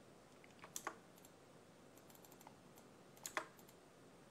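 Faint clicking from working a computer's mouse and keys: two quick pairs of clicks, about a second in and again about three seconds in, with a few fainter ticks between, over near silence.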